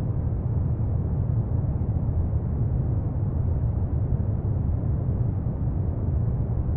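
A steady, deep rumbling noise that does not change, heaviest in the low end, like a brown-noise or night-wind ambience bed. No plucked oud notes stand out.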